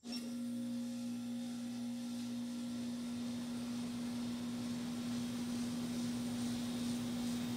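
A split-type air conditioner's outdoor unit starts abruptly and settles into a steady electrical hum from its compressor, with a faint rushing noise over it. This is the compressor start that draws an inrush current of about 60 A peak.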